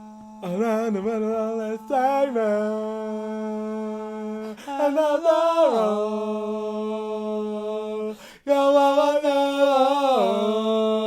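A person singing unaccompanied in a chant-like way: long held notes that slide up and down between pitches, in several phrases with short breaks, over a steady low hum.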